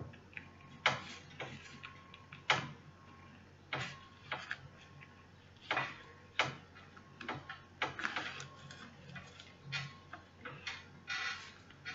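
Irregular light clicks and short scratchy rustles, about one a second, from hands sewing a hair weft onto a wig cap with needle and thread: the needle going through the cap and the thread and hair being pulled and handled.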